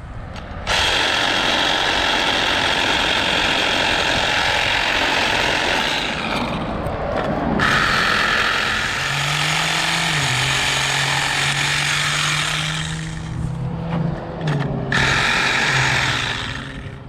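Power saw cutting through guamuchil tree wood in three long runs, starting abruptly and pausing briefly about seven seconds in and again near the end.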